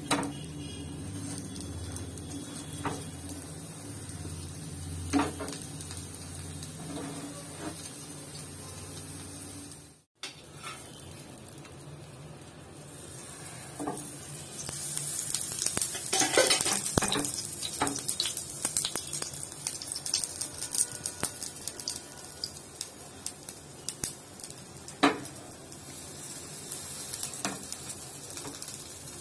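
Urad dal adai batter frying in oil on an iron tawa, with a slotted metal spatula knocking and scraping on the griddle. The sizzle of the oil is faint at first and grows much louder about halfway through, with scattered sharp clicks and knocks.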